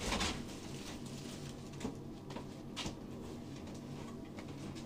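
Faint rustling and a few light knocks of cardboard packaging being handled as a boxed part is lifted out of a carton.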